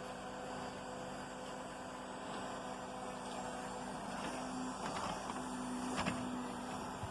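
Electric motor of a Tyco HO-scale model locomotive running with a steady low hum that wavers a little in pitch after the middle, with a couple of faint clicks near the end.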